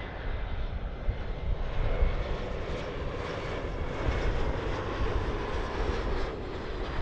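Airliner engines running: a steady noise with a strong low rumble and faint whining tones above it.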